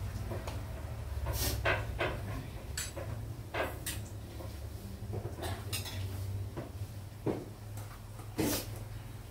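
Scattered clinks and knocks of cookware and utensils, about a dozen spread irregularly over several seconds, over a steady low hum.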